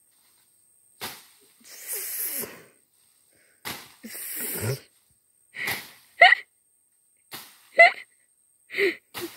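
A long-bladed knife slashing through leafy undergrowth, with short swishing and rustling bursts, followed by several short, sharp vocal sounds that rise and fall in pitch.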